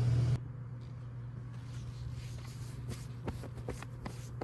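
A low steady hum with a few faint scattered clicks and knocks in the second half.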